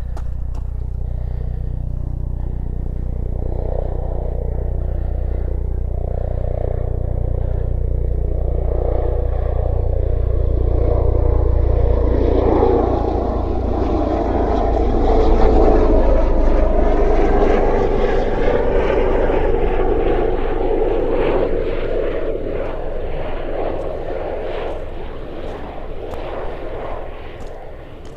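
Emergency medical (air ambulance) helicopter flying past: rotor beat and engine noise grow louder, are loudest about halfway through, then fade away.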